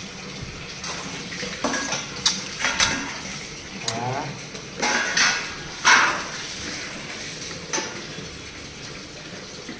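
Scattered sharp clinks and knocks at irregular intervals, the loudest about six seconds in, with a brief voice about four seconds in.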